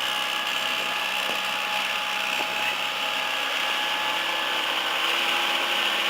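A motor running steadily, a constant drone with a high whine and no change in speed.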